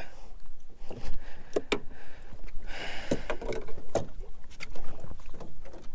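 Sounds aboard a small fishing boat at sea: scattered sharp knocks and handling clatter, a short rush of water about three seconds in, and a low rumble underneath.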